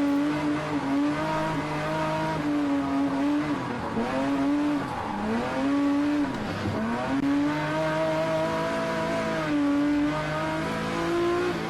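Rally car engine at high revs, its note dipping and climbing back three times around the middle as it comes off and back onto the throttle.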